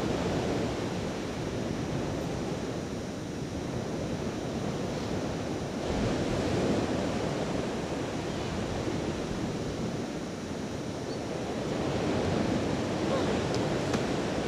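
Sea surf washing onto a sandy beach, with wind on the microphone. The surf swells a little about six seconds in and again near the end.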